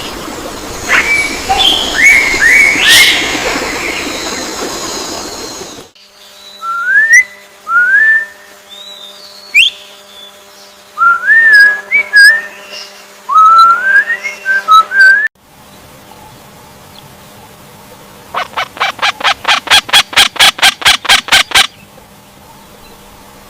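Bird calls in three short clips: first a burst of chirps, then a run of short rising whistled notes repeated every second or so, then a rapid rattling series of about a dozen sharp notes, roughly six a second.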